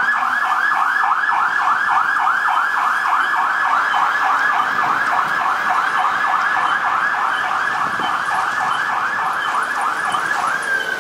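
Fire truck siren in fast yelp mode, a rising-and-falling wail repeating about four times a second, over a low rumble of traffic. It cuts off abruptly near the end.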